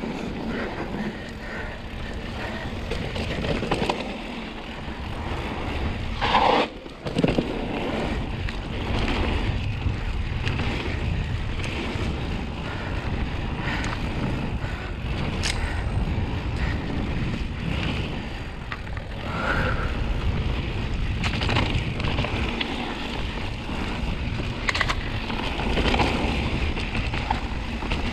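Mountain bike riding down a dirt trail: steady wind buffeting on the microphone and tyre rumble, broken by knocks and rattles from the bike over the bumps, the loudest a sharp clunk about six and a half seconds in.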